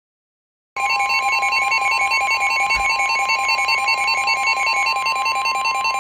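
NOAA Weather Radio warning alarm tone: a loud, steady tone of about 1 kHz that starts abruptly after under a second of silence, signalling that a warning broadcast is about to follow. A fast-pulsing higher electronic warble sounds over it.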